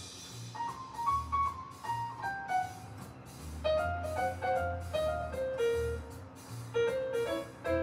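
Background piano music: a slow melody of single notes stepping up and down over low bass notes.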